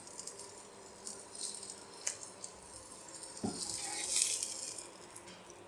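A black spatula lifting grilled chicken leg pieces off a grill pan onto a plate: faint clicks and scrapes, a soft thud about three and a half seconds in, and a brief scraping hiss just after.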